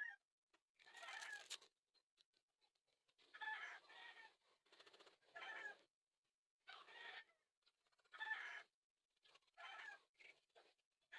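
Chickens calling faintly: a string of short clucking calls, each under a second, coming every second or so.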